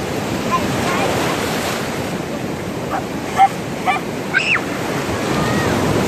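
Sea surf washing on the shore, a steady rush of waves, with a few short high-pitched children's cries about halfway through.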